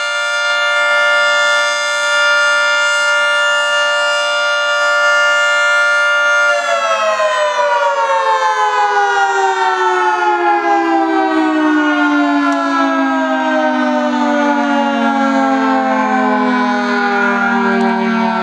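Federal Signal 3T22 three-tone omnidirectional siren sounding its steady alert chord. About six and a half seconds in it shuts off, and the chord winds down in a long falling glide as the rotor slows.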